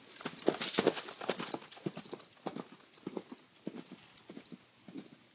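Hoofbeats of a Gypsy horse–Clydesdale cross gelding moving under a rider, a louder flurry of strikes about a second in, then a lighter, steady beat of two to three strikes a second.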